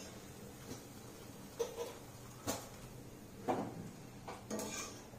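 A wire spider strainer knocking lightly against a stainless-steel kadai about five times, roughly a second apart, as fried balls are scooped out of hot oil. A faint sizzle of frying oil runs underneath.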